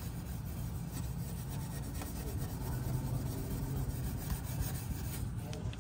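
Fine 0000-grade steel wool rubbed rapidly back and forth over a chrome exhaust tip trim, scrubbing off black carbon soot buildup.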